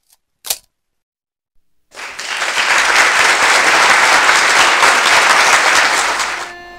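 Audience applauding, starting about two seconds in and fading near the end as steady held tones begin. A single short click sounds about half a second in.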